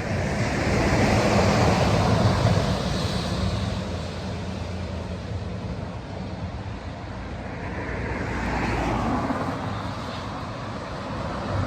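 Outdoor background noise: a rushing hiss over a low rumble that swells about a second in, eases off, and swells again near the end.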